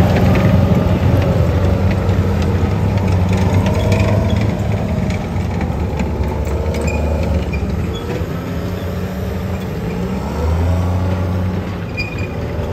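M113-type tracked armoured vehicle driving past and turning, its engine running with a steady low note over the clatter of its steel tracks. The engine grows louder about ten and a half seconds in.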